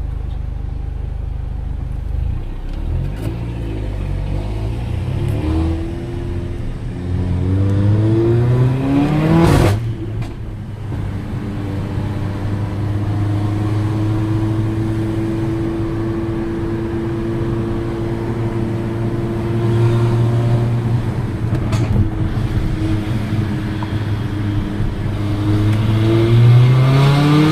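Mercedes-AMG GLA 45's turbocharged 2.0-litre four-cylinder engine pulling under acceleration, rising in pitch until a short crack at a gear change about nine and a half seconds in. It then holds a steady note while cruising, and climbs again near the end under more throttle.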